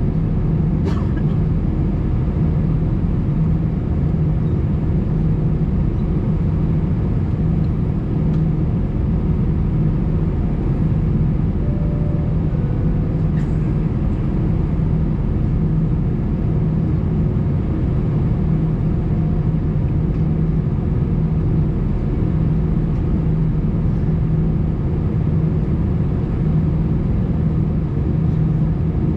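Steady low drone inside the cabin of an Airbus A320 standing still on the ground at night, with its engines idling and air conditioning running. The hum holds even throughout, with no rise in pitch or level.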